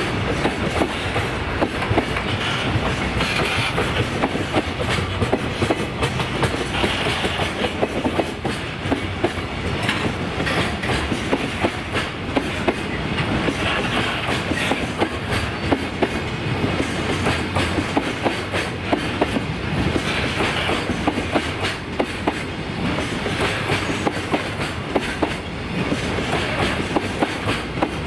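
JR Freight container flat wagons rolling past, with a steady rumble of wheels on rail and repeated clickety-clack as the bogies cross the rail joints.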